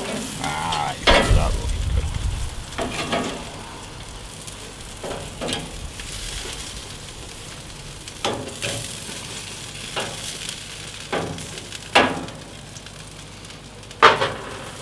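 Sausages sizzling on the grate of a gas grill, with short clicks of metal tongs as they are turned. A louder clack near the end as the tongs are set down on the grill's side shelf.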